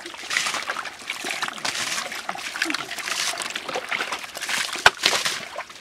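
Splashing and sloshing in shallow muddy water, in repeated bursts, as hands work through the mud and the fish-filled basket. There is a single sharp knock nearly five seconds in.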